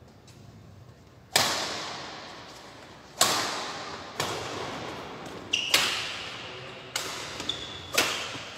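Badminton rally: rackets hitting the shuttlecock about six times, one to two seconds apart, each sharp crack echoing through the large hall.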